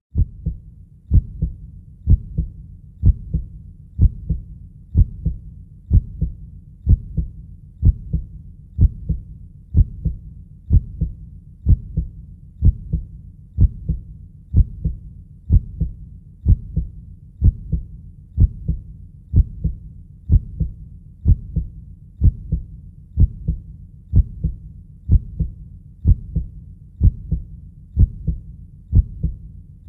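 A heartbeat beating steadily at about one beat a second. Each beat is a deep, close double thud (lub-dub).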